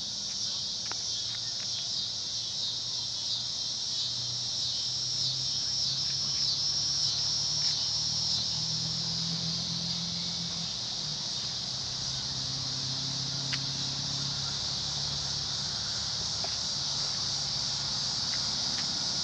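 Crickets chirping in a steady, high-pitched evening chorus.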